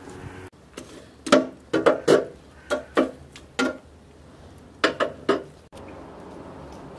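Wire grill basket and metal tongs clinking and knocking against a steel charcoal mangal, about ten sharp metallic clinks in irregular clusters as the basket of kebabs is handled on the grill.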